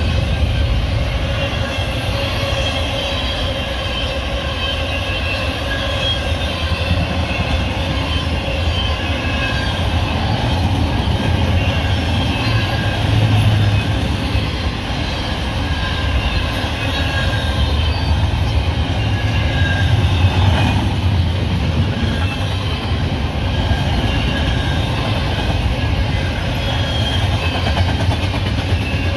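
Union Pacific double-stack intermodal freight train's railcars rolling steadily past: a continuous rumble of steel wheels on the rails, with a faint high-pitched wheel squeal at times.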